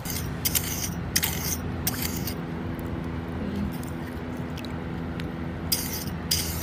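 Small iron hand rake scraping through wet sand and shell grit in shallow water while digging for clams: a few short scraping strokes in the first two seconds and again near the end. A low steady hum runs underneath.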